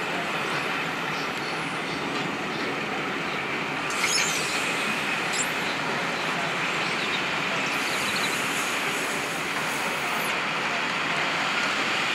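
Railway passenger coaches rolling slowly past: a steady rumble of steel wheels on rail with a few faint, brief high-pitched wheel squeals. A short clank about four seconds in.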